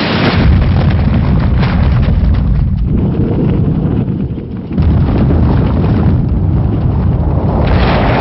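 A loud, heavy, continuous rumble, strongest in the low end, dipping briefly about three seconds in and swelling again near five seconds, with a brighter rushing surge near the end.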